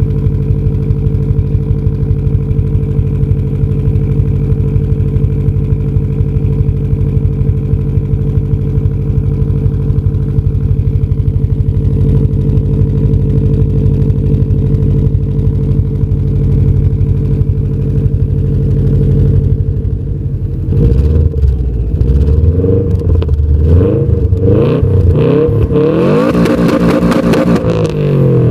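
Subaru Impreza WRX's turbocharged flat-four engine idling steadily through an HKS Hi-Power exhaust, heard right at the tailpipe. After about twenty seconds it is revved several times, the pitch rising and falling with each blip.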